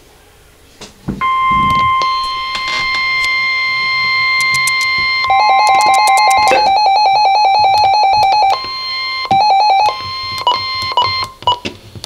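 NOAA Weather Radio 1050 Hz warning alarm tone sounding from a RadioShack weather alert radio, a steady high tone with no SAME data bursts before it, announcing a flood warning extension. About halfway through, the radio's own rapid electronic alert beeping joins it. The sound turns choppy and cuts off near the end as the radio's button is pressed.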